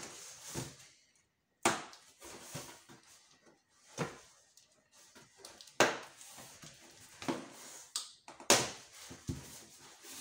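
Cardboard boxes being handled and a knife cutting the packing tape on an inner box: irregular scraping and rustling of cardboard, with four sharp knocks along the way.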